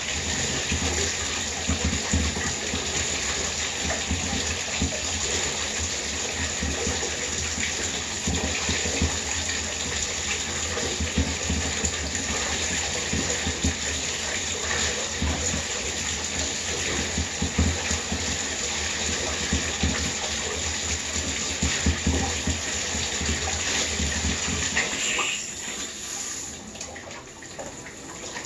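Water running into a bathtub, a steady rush with irregular splashes; the flow drops sharply near the end.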